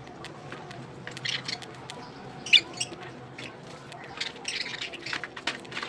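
Budgerigars chirping and squawking in short, scratchy calls, the loudest about two and a half seconds in, with a run of calls near the end.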